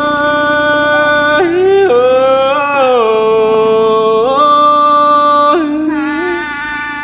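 A voice singing a Northwest Vietnamese Thai folk song in long held notes, sliding up and down between pitches, with a new phrase every second or two.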